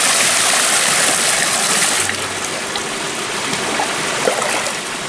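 Water poured from a wooden bucket cascading over a person's shoulders and splashing into a river, easing off about two seconds in; the bucket is then dipped back into the river for another scoop.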